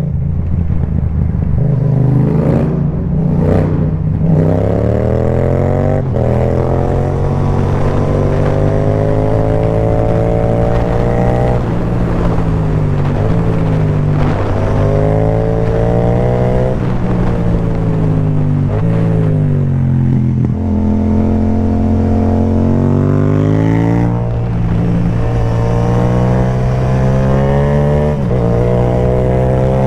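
Yamaha MT-07's 689 cc parallel-twin engine through an Akrapovic carbon low-mount exhaust with the dB killer removed, ridden hard: its pitch climbs as it pulls and drops back sharply again and again, with a couple of steadier stretches in between.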